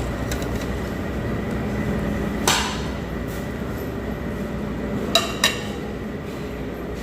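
Dishes clinking: three sharp ringing clinks, one about two and a half seconds in and two in quick succession a little past five seconds, over a steady background hum.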